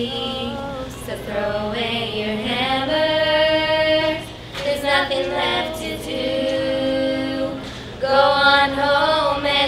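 A small group of women and girls singing a cappella, a slow melody with several long held notes.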